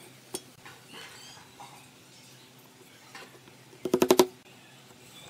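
Wooden mallet tapping a nail into a drilled pine strip: a quick run of about five sharp, ringing taps about four seconds in, after a single light tick near the start.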